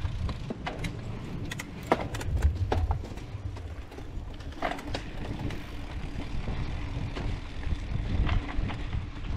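Mountain bike riding over a dirt trail: a steady low rumble of tyres and wind on the microphone, broken by scattered sharp clicks and rattles from the bike over bumps.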